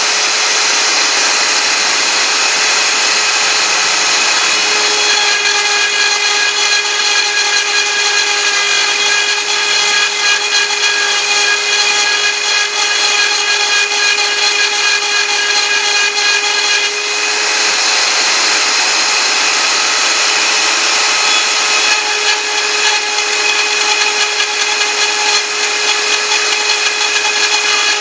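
CNC router spindle running with a steady, high whine of several tones over a hiss while it mills lettering. The pitch pattern shifts slightly about 17 seconds in.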